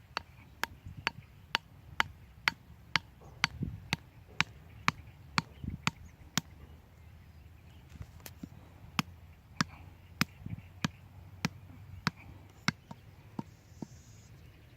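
Rhythmic chopping strokes, sharp and evenly spaced at about two a second. They pause for a couple of seconds midway, then resume and thin out near the end.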